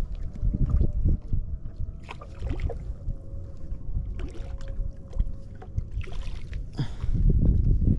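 Wind rumbling in gusts on an action camera's microphone in a small open boat, with a few light knocks and clicks as the fishing pole is handled. A faint steady hum runs underneath from about two seconds in, and the wind surges louder near the end.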